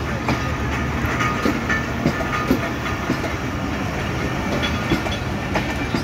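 Jaffar Express passenger coaches rolling past: a steady rumble of steel wheels on the rails with irregular clicks and knocks as the wheels cross rail joints.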